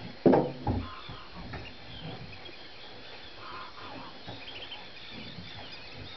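Many distant birds calling: thin, high chirps and whistles scattered throughout over a steady outdoor background, with a brief louder low sound near the start.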